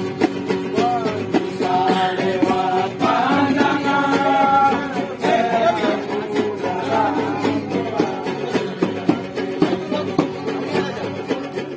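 Group of men singing along to strummed acoustic guitars and a ukulele, a steady quick strumming rhythm under several voices singing a folk-style song.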